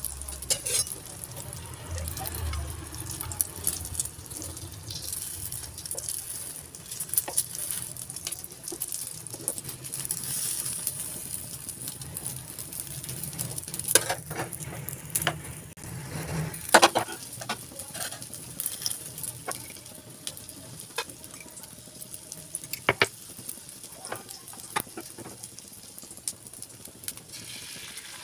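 Egg omelette sizzling in a nonstick frying pan while a spatula scrapes and taps the pan as the omelette is rolled. Scattered sharp clicks of utensil on pan, the loudest cluster about halfway through.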